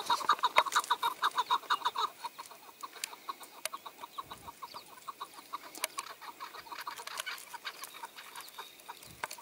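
Chukar partridge calling: a fast run of short clucking notes, loud for the first two seconds, then carrying on more faintly.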